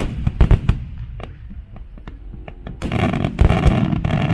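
Aerial fireworks shells bursting: several sharp bangs in the first second, then from about three seconds in a dense, louder run of overlapping pops and crackle.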